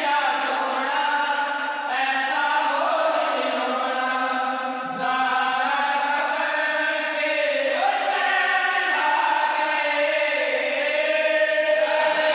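A group of men singing a Punjabi naat (devotional kalam) together, long held notes that bend slowly in a chant-like melody.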